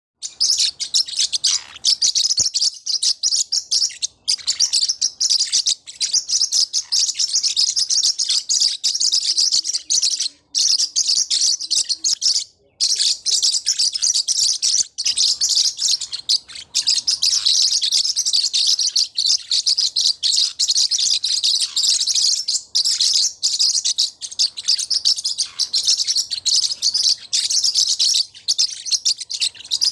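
Forpus parrotlets chattering to each other: a dense, continuous stream of high, rapid chirps and tweets, broken only by two brief pauses about a third of the way in.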